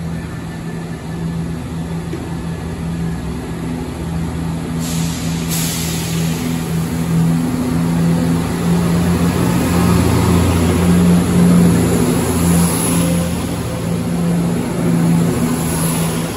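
Northern diesel multiple unit's underfloor engines running with a steady hum as the train draws into the platform, getting louder as it comes alongside. Short hisses come about five seconds in and again later on.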